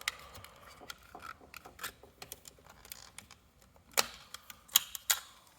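Small plastic parts of a smoke detector being handled and prised, giving scattered light clicks and taps, with a few sharper clicks about four seconds in and near the end.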